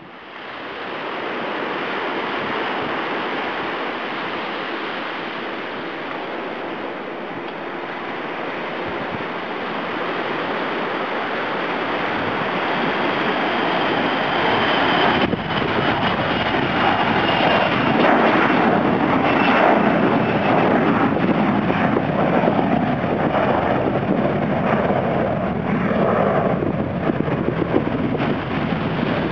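Jet airliner taking off and climbing away overhead: steady jet engine noise that grows louder about halfway through, with a high whine falling slowly in pitch as the aircraft passes. Wind buffets the microphone.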